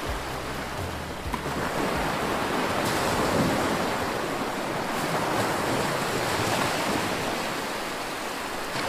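Sea waves washing on a shore, a steady rush of noise that swells and ebbs.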